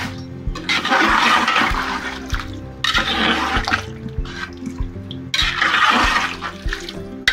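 Large pot of chicken and spiced water for pulao boiling hard, a rushing, bubbling hiss that surges twice, over quiet background music.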